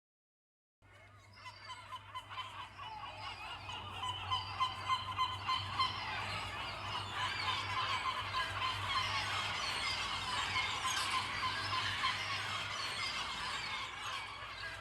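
A colony of yellow-legged gulls calling: many birds at once in dense, overlapping short calls. It fades in about a second in.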